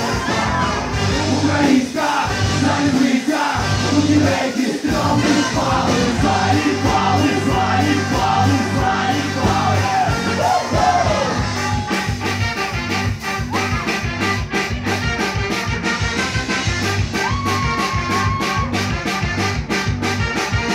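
Ska-punk band playing live: a sung lead vocal over electric guitar, keyboard, trombone and drums, giving way about halfway through to an instrumental stretch with a steady, even beat.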